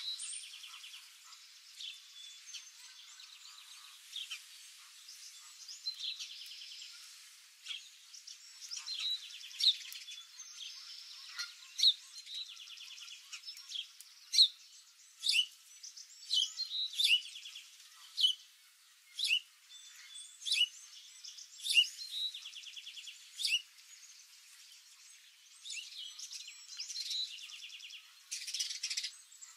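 Songbirds calling: a run of sharp, short chirps about once a second, loudest through the middle, over fainter rapid trills.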